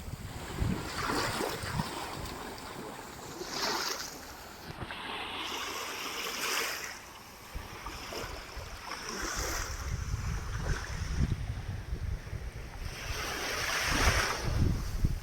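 Ocean waves washing in and surging every few seconds, with wind gusting on the microphone, strongest in the second half.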